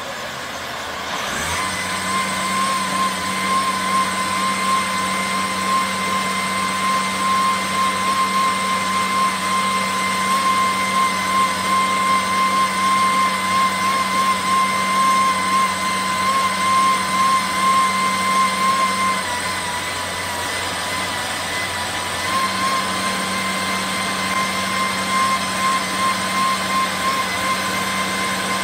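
A chainsaw's engine revving up about a second in and then running at a steady high speed, its pitch sagging briefly past the middle before picking up again.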